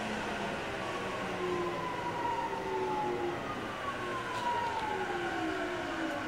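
Mitsubishi GTO VVVF inverter of a JR 209-500 series electric train, heard from inside the car. Its whine falls steadily in pitch as the train brakes and slows, over the steady rumble of wheels on rail.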